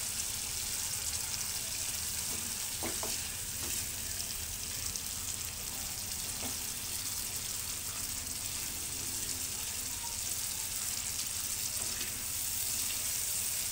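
Ground turmeric spice paste sizzling steadily in hot oil in a pan while it is stirred, with a few light scrapes of the spatula against the pan. The paste is being cooked right through before it goes into the soto ayam broth.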